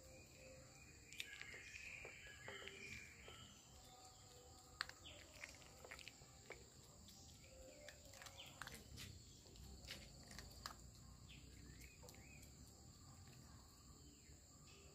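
A Japanese Spitz puppy eating from a stainless steel bowl: faint scattered clicks and crunches of chewing and food against the metal. A steady high insect chirring and a few bird chirps sit faintly behind it.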